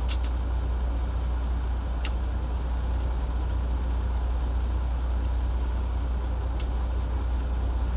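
Idling engine heard inside a truck cab as a steady low hum with a faint even tone above it. Three short crisp crunches come through it, one at the start, one about two seconds in and one near the end, as a fresh radish is bitten.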